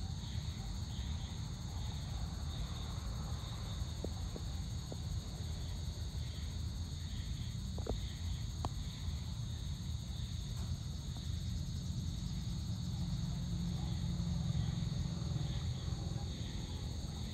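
Dusk insect chorus: steady high-pitched trilling, over a low background rumble, with a few faint short ticks about a third and half of the way through.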